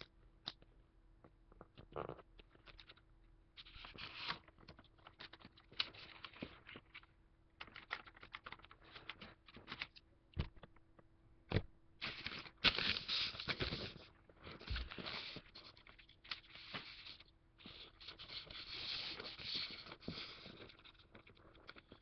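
Origami paper being folded and creased by hand on a tabletop: irregular rustling, scraping and crisp crinkling as fingers run along the folds, with denser bouts of rubbing about four seconds in, around the middle, and again near the end.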